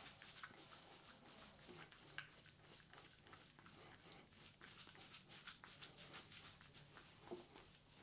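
Hands rubbing shampoo lather into skin and hair at the nape of the neck: faint, soft squishing and fine crackling of the foam, with a couple of slightly sharper clicks.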